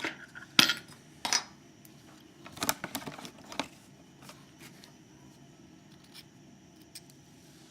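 Small metal parts of a disassembled pin-tumbler lock and tools clicking and clinking as they are handled and set down on a bench. There are several sharp clicks in the first few seconds, then only faint ticks.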